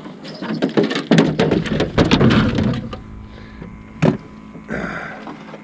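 Close handling noise: a dense run of clicks, rustles and scrapes for about three seconds, a single sharp knock about four seconds in, then softer scraping.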